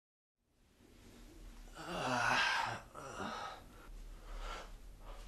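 Faint human vocal sounds after a moment of dead silence: a short groan about two seconds in, then a few soft breaths.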